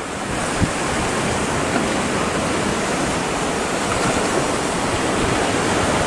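Ocean swell breaking and surging, a steady even rush of water.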